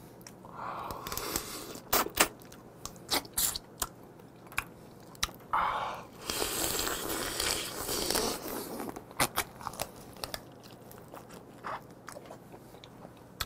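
Eating raw swimming crab: scattered sharp crunches and cracks of the shell being bitten, with longer wet sucking stretches as the raw meat is drawn out, the longest around the middle.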